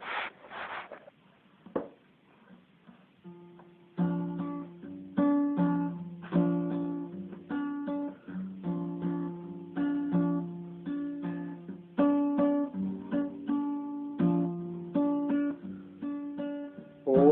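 Acoustic guitar playing a song's introduction, starting about three seconds in: bass notes alternating with chord strums, roughly one strum a second.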